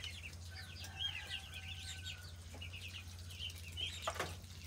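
A flock of Muscovy ducklings peeping: many short, high calls repeated over and over, over a steady low hum.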